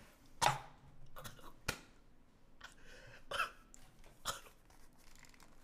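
A man gagging and coughing in a handful of short, sharp bursts, the loudest about half a second in, right after gulping down a raw egg.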